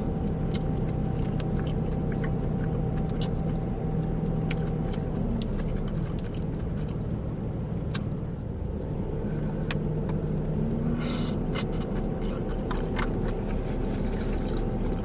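Chewing and biting into food, with scattered short crunchy clicks, over a steady low rumble like an idling car heard from inside the cabin.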